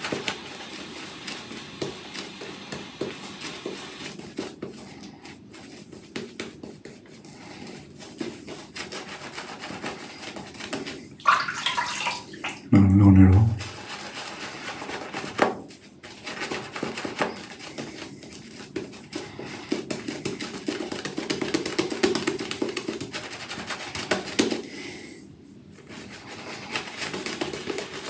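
Manchurian two-band badger shaving brush working shaving soap lather over a stubbled face: a steady, fine-grained rubbing, with one brief louder sound about halfway through.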